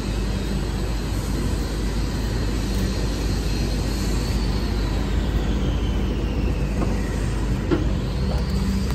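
Steady street noise with a low traffic rumble. A faint whine slides down in pitch through the middle, and there is a small knock near the end.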